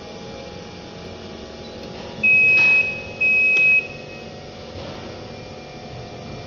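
Two electronic beeps at one steady high pitch, each about half a second long and a short gap apart, about two seconds in, over a steady electrical hum.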